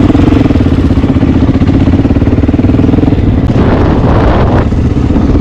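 Single-cylinder Honda XR dual-sport motorcycle engine running at a steady cruising pace on a dirt track, heard close up from the bike being ridden. A rushing noise swells for about a second, some three and a half seconds in.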